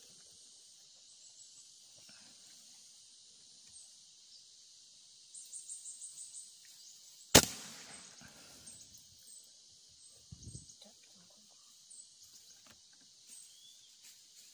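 A single air rifle pellet shot about seven seconds in, fired at a tilapia in shallow lake water: one sharp crack with a short fading tail. A dull low thump follows about three seconds later. Under it all is a steady high background hiss.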